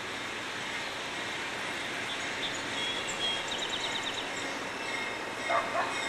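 Amtrak passenger train hauled by two GE P42 diesel locomotives approaching slowly in the distance: a steady, building noise of engines and wheels. A couple of short rising squeaks come near the end.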